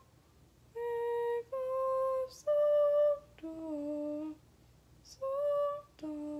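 A woman's unaccompanied voice singing a slow sight-singing line of single held notes, each at a steady pitch with short breaks between. Three notes climb step by step, then the line drops to a lower note, rises again and drops once more near the end.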